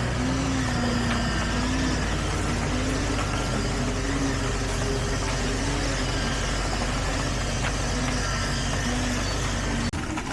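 Heavy construction machinery engine running steadily, with a low hum and a wavering tone that rises and falls about once a second; it breaks off abruptly near the end.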